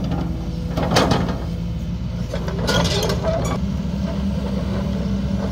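Kobelco Super XM-8 tracked excavator travelling on its steel tracks over asphalt, its diesel engine running steadily, with a few sharp clanks. The engine note steps up about three and a half seconds in.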